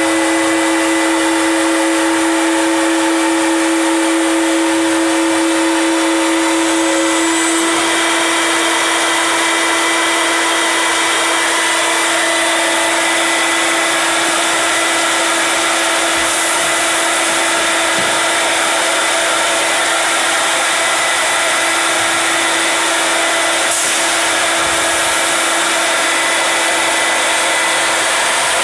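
5-axis CNC stair machine cutting open stringers through three stacked 2x10 boards, 4.5 inches of wood at once: a loud, steady whine and hiss of the cutting spindle. A higher tone in the whine drops out about seven seconds in.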